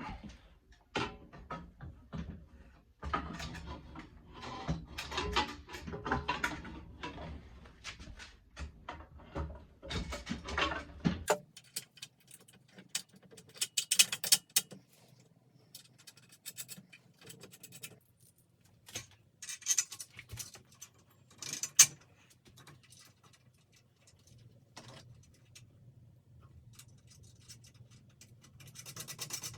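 Intermittent clicks, knocks and scraping of hand work on metal parts, busier and rattling for the first ten seconds or so, then sparser, with a few sharp clicks about 14, 20 and 22 seconds in.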